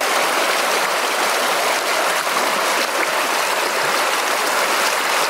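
Mountain creek water rushing steadily over rocks close by, a loud, even wash with no change.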